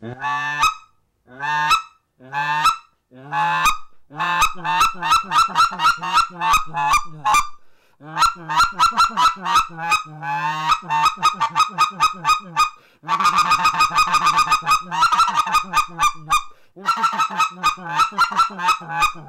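Specklebelly goose call blown by mouth, voicing low scratch notes that break sharply upward into squeals, as the air is increased and the tongue slammed forward. The notes come singly for the first few seconds, then in fast rolling runs of several a second. It imitates white-fronted geese.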